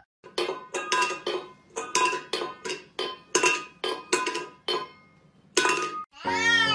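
An empty stainless steel pet food bowl clanking repeatedly on a hard floor as a cat paws at it, a cat demanding food. There are about fifteen quick, uneven metallic strikes, each ringing briefly, with a pause before one last clank.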